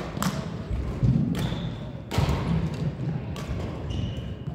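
Badminton rally: rackets striking a shuttlecock about once a second, four sharp hits echoing in a large sports hall, with players' footfalls thudding on the court floor in between.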